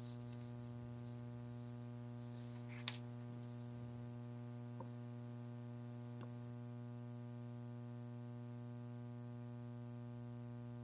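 Steady electrical mains hum on the audio feed, with a single sharp click about three seconds in and two faint ticks later.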